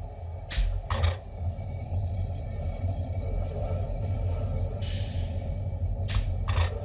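Roller coaster train running along its steel track in a low, steady rumble, with a few sharp clicks and a short hiss about five seconds in.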